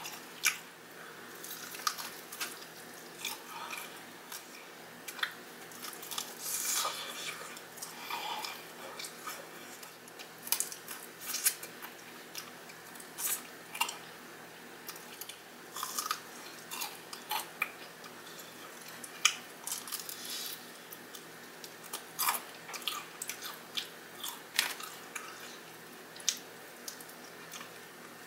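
Close-miked eating of Popeyes fried chicken: irregular crisp crunches as the breaded crust is bitten and torn, between softer chewing and mouth sounds.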